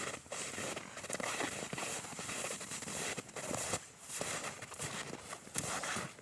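Footsteps crunching through snow, an irregular run of crisp crunches and scuffs with no steady rhythm.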